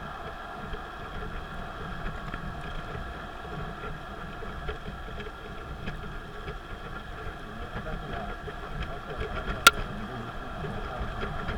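Steady road and engine noise of a car driving along an expressway, with one sharp click a little under ten seconds in.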